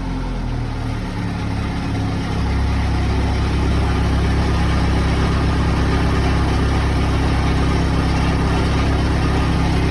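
Case 580 Super L backhoe's diesel engine running after a fuel-starved no-start, its injector lines just bled of air. It picks up and grows louder about two seconds in, then runs steadily.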